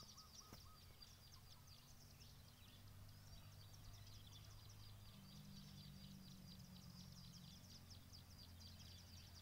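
Faint outdoor ambience: a dense chorus of short, high chirps from small birds, over a low steady hum that grows a little louder about halfway through.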